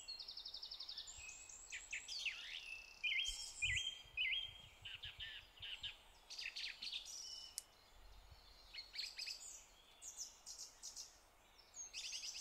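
Songbirds singing: a mix of rapid trills and short chirps, over a faint steady background of outdoor noise.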